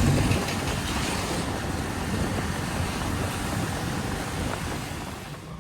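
Wind rushing over the microphone of a moving motorcycle, with engine and road noise underneath, easing a little near the end.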